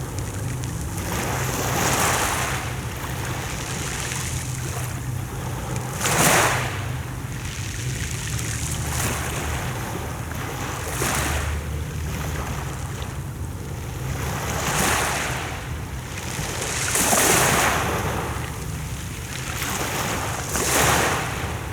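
Mediterranean sea waves breaking and washing on the shore, the surf swelling every few seconds, loudest about six and seventeen seconds in, over a steady low rumble.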